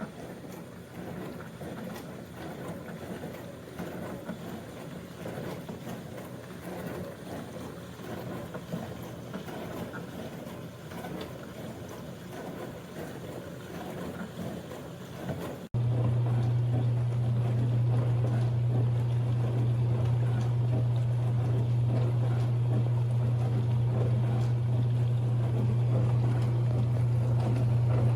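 NOVETE portable countertop dishwasher running a wash cycle, with water spraying and sloshing inside. About halfway through, the sound cuts abruptly to a louder run with a steady low motor hum under the spray.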